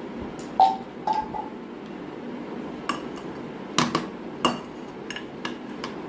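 Pebbles clinking against a glass jar and against each other as the plant is pushed in among them: a few sharp knocks, the first two with a brief glassy ring, then lighter ticks, over a steady low background hiss.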